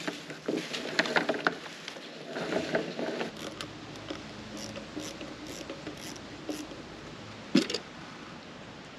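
Electrical wires and pull rope being hand-pulled up through a short conduit run: rubbing and rustling with light knocks and clicks, and one brief sharper sound near the end.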